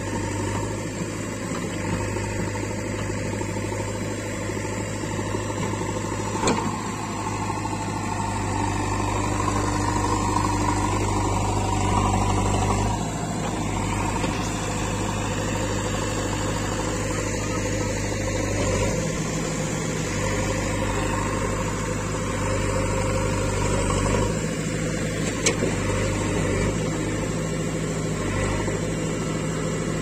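JCB 3DX backhoe loader's diesel engine running steadily close by, its note and load shifting a few times as the backhoe arm works. Two short knocks stand out, one early and one near the end.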